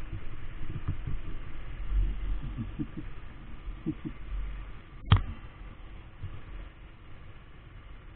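Low, uneven rumble with one sharp click about five seconds in.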